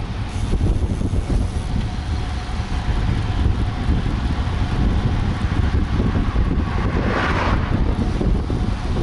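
Wind rushing over the microphone of a camera on a road bike riding at speed, a steady low rumble. A short hiss swells up and fades about seven seconds in.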